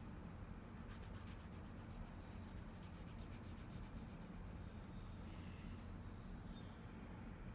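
Colour pencil scribbling on paper in quick, repeated back-and-forth strokes, faint over a steady low hum. The strokes run for the first few seconds and then thin out.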